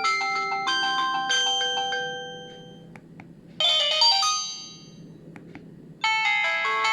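Samsung GT-E1200 mobile phone playing its ringtones in turn: one melody fades out over the first two seconds, a short chiming phrase sounds about halfway, and a new melody starts near the end, with a few faint clicks in the gaps.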